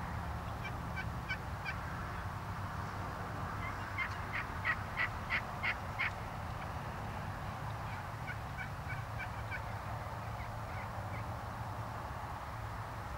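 Wild turkeys calling in runs of short, evenly spaced notes. The loudest run, about six calls, comes around the middle, with softer runs before and after, over a steady low hum.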